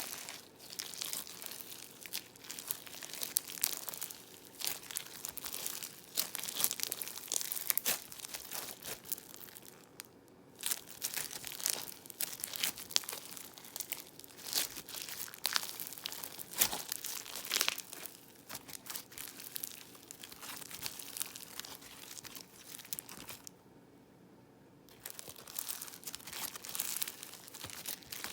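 Crunchy floam slime being squeezed and stretched by hand, a dense run of small crackles and bubble pops, pausing briefly twice.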